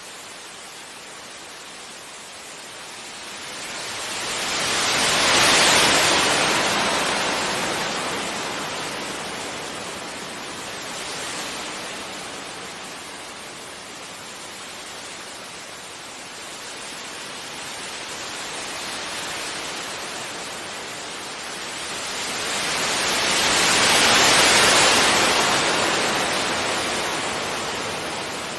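Gentle sea waves breaking on a beach: a steady wash with two big waves surging and ebbing away, about five seconds in and again near the end, and smaller swells between them.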